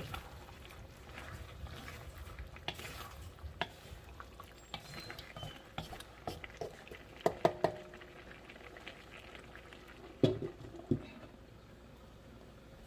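Chicken adobo simmering in a pan, a low bubbling sizzle, with scattered light clinks and knocks of cookware against the pan, the loudest a few about seven seconds in and again around ten seconds in.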